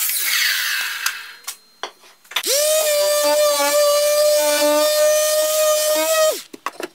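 A Makita sliding miter saw blade spins down after a cut, its whine falling away over about a second. After a short pause with a few clicks, a square-pad palm sander starts up on a hardwood board, runs steadily with a high motor whine for about four seconds, then switches off.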